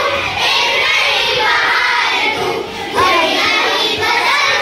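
A group of children singing together, many young voices at once.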